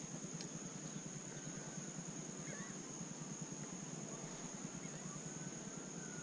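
Quiet marsh ambience: a steady low rumble with a constant high-pitched whine, and faint short bird calls now and then.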